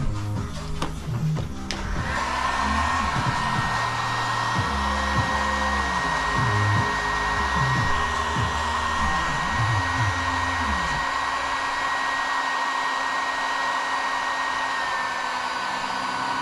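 Hair-dryer-type electric blower switched on about two seconds in, running steadily: a rushing air hiss with a thin high motor whine.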